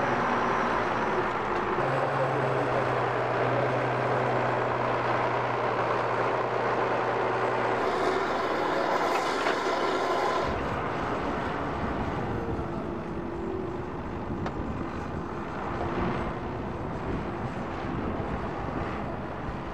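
Tractor engine running, with a steady low hum and the sound changing abruptly a few times.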